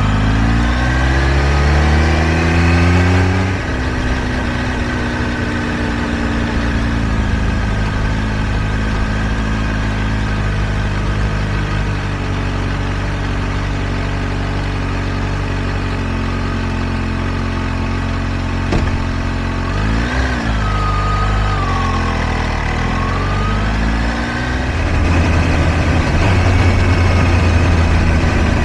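Kawasaki Ninja H2 SX's supercharged inline-four engine on the move: it pulls up through the revs for the first few seconds, then runs steadily at cruising speed. About twenty seconds in the revs dip and climb again, and near the end it pulls harder and louder.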